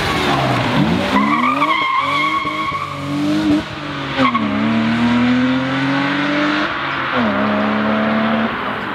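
BMW E36 rally car passing and accelerating hard away, its engine pitch dropping as it goes by, then climbing and falling back at two upshifts, about four and seven seconds in. A high tyre squeal lasts about a second and a half, starting about a second in.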